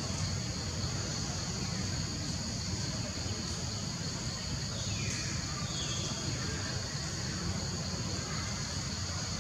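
Steady high-pitched insect chorus buzzing continuously over a low background rumble, with a faint falling whistle about five seconds in.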